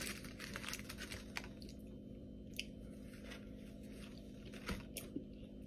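Close-up chewing of a bite of spicy chicken sandwich: dense crackling for the first second and a half, then scattered sharp mouth clicks.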